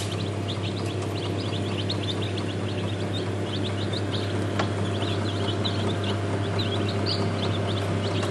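Newly hatched chicks peeping, many short, falling chirps overlapping continuously, over a steady low hum.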